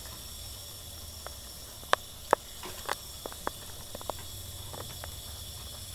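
A thin stream of tap water trickles into a bathroom sink while a blue-and-gold macaw bathes under it. Over a steady faint hiss come a handful of sharp clicks and splashes, the two loudest about two seconds in.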